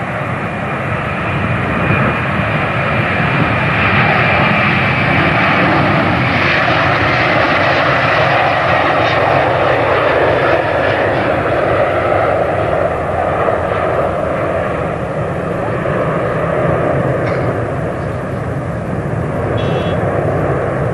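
Airbus A330's twin jet engines running at high power on the runway: a loud, steady roar that builds over the first couple of seconds and holds, with a thin high whine that fades in the first few seconds.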